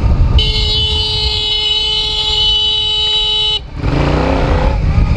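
A vehicle horn held on one steady note for about three seconds, starting about half a second in and cutting off sharply, over the motorcycle's engine and wind rumble.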